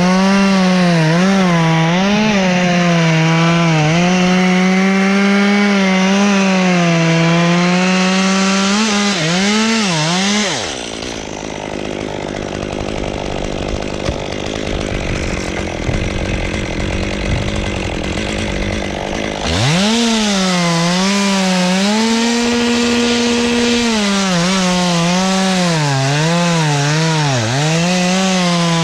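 Gas chainsaw running at full throttle through wood, its pitch dipping and recovering as it cuts. About ten seconds in the high engine note drops away for roughly nine seconds, then the saw revs sharply back up and carries on cutting.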